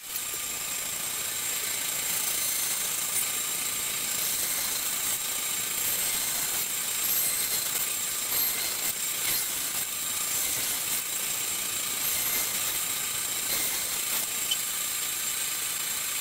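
Bandsaw running steadily while it cuts slots into a wooden board.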